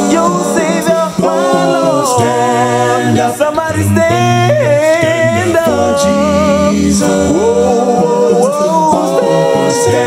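Male a cappella gospel group singing in harmony without instruments: upper voices slide and bend through wordless runs over steady held notes from the lower voices.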